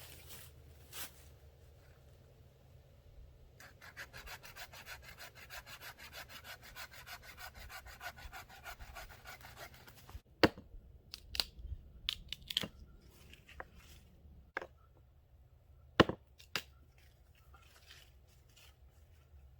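Hand saw cutting wood in a quick, even run of strokes for about six seconds, followed by scattered sharp knocks and snaps of wood being handled.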